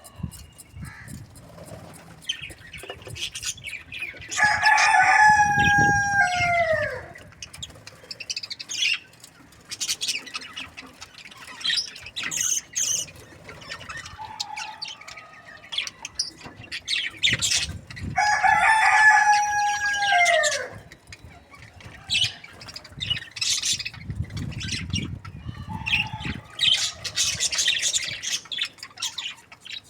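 A rooster crows twice, each crow lasting about two and a half seconds and ending in a falling note. Short bird chirps and squawks come in between.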